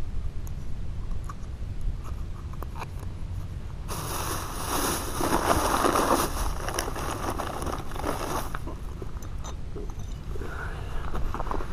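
Plastic bag crinkling and rustling as hands rummage in it inside a cooler, loudest for about four seconds in the middle, with scattered small clicks before and after. A steady low rumble runs underneath.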